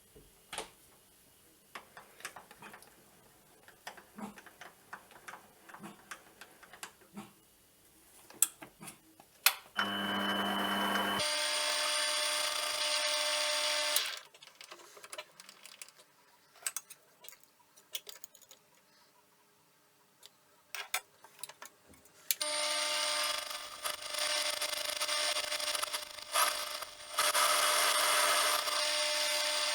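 Small metal lathe running in two spells of a few seconds each, giving a steady whine with several fixed tones. Between the spells come scattered clicks and light knocks of metal parts and tools being handled.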